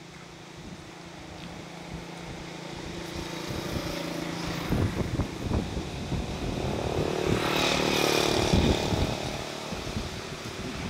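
A motor vehicle's engine approaching and passing, growing steadily louder to a peak about eight seconds in, then fading.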